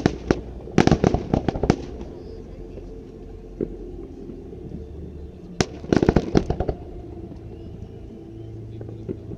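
Aerial fireworks bursting in rapid clusters of sharp bangs: a volley at the start and between one and two seconds in, a single bang near the middle, and another dense volley about six seconds in.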